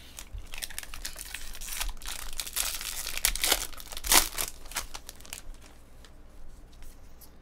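Foil wrapper of a trading-card pack crinkling and tearing as it is ripped open by hand. The loudest rip comes about four seconds in, and the crackling dies down after about five and a half seconds.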